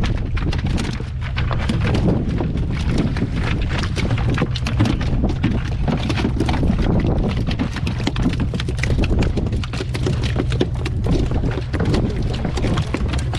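Wind buffeting the microphone over water sloshing against a small wooden fishing boat, with a steady low rumble and many irregular knocks and thumps as queen fish are hauled aboard on a handline and land on the boat's floor.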